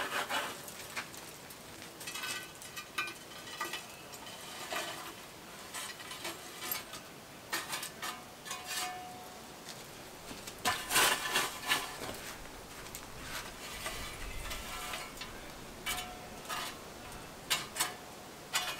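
A metal shovel scraping up hot coals and tipping them onto the lid of a cast-iron camp oven: scrapes, crunches and clinks of metal, in short clusters every few seconds.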